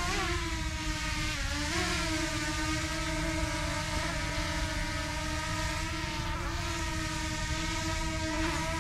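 Small quadcopter drone's propellers humming steadily, with the pitch dipping and recovering briefly twice as it adjusts. Low wind rumble lies underneath.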